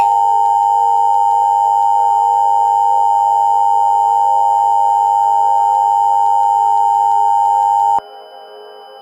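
Emergency Alert System attention signal: a loud, steady two-tone alert tone held for about eight seconds, then cut off suddenly. Faint ambient music runs underneath and carries on after it.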